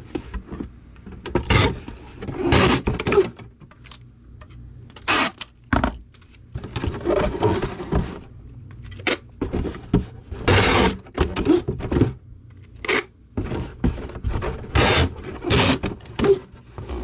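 Packing tape being pulled off the roll in a series of long rips to tape up a cardboard Priority Mail shoebox, with short knocks and thunks from the box being handled.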